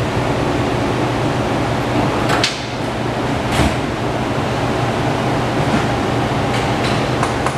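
Front rim of a 1998 Suzuki VZ800 Marauder spinning on a truing stand for a runout check: a steady whirring hum, with a few light ticks about two and a half seconds in, again a second later, and several near the end.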